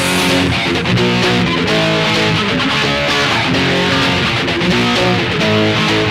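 Music playing steadily, with guitar chords changing every half second or so.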